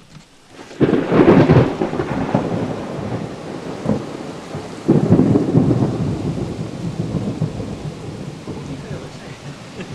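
Heavy thunder from a thunderstorm: a sudden clap about a second in that rolls on, then a second clap about five seconds in that rumbles away slowly.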